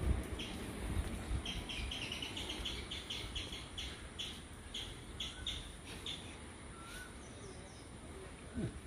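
A small bird chirping in quick runs of short, high notes, thickest a couple of seconds in, over a low rumble.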